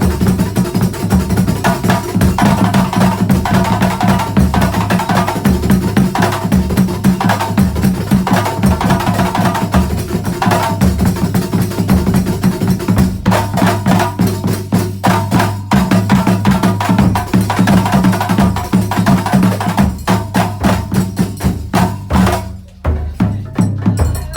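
Terbang frame drums played together in a fast, dense rhythm, with a brief break near the end before the beat picks up again.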